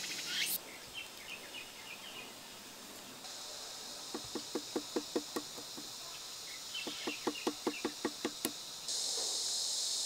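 Wooden knife handle tapping a green twig in two runs of quick light knocks, about five a second. The tapping loosens the bark so the twig's core can be pushed out.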